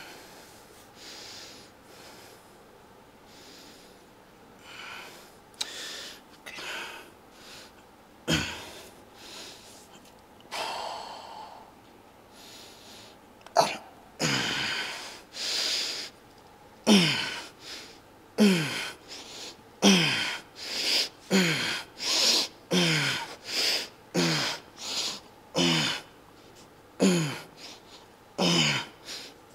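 A man's forceful breaths and short grunts while lifting dumbbells. From about halfway through they come in a quick, regular run, one with each rep, each dropping in pitch. Before that there is quieter breathing and a single knock.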